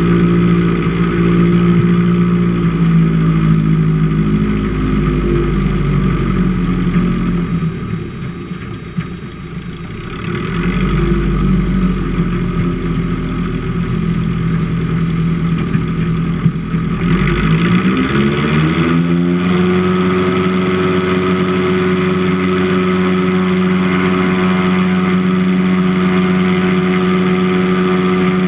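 Seaplane's piston engine running on the water, with water rushing along the hull. Power eases back for a moment about eight seconds in, then the engine rises in pitch over a couple of seconds to a steady high-power note for the takeoff run.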